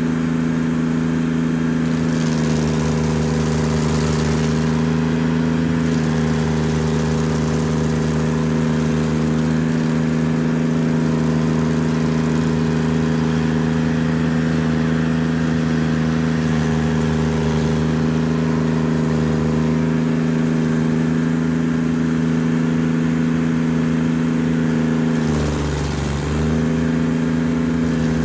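Carlton SP7015 TRX tracked stump grinder running hard, its cutter wheel chewing into a stump over a steady engine drone. Near the end the engine briefly drops in pitch, then picks back up.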